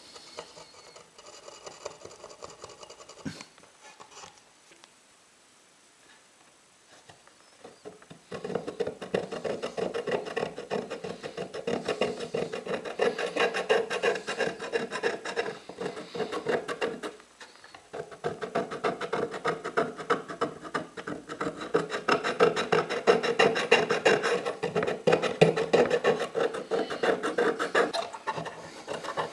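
A steel blade scraping old white coating off a wooden tray in many quick strokes. Faint at first, it turns loud about eight seconds in, stops briefly around the middle, and then carries on.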